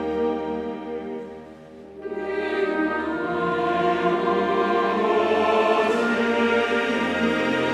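Background music with choral singing: a soft passage fades out about a second and a half in, then a fuller choir-and-orchestra passage swells in and holds.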